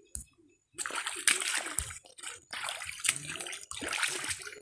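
Shallow water in a plastic-lined pond sloshing and splashing in a series of irregular bursts as someone moves in it, starting about a second in.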